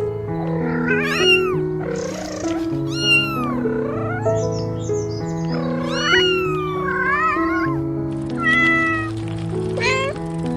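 Cat meowing about five times, the fourth call long and drawn out, over background music with a slow melody of held notes.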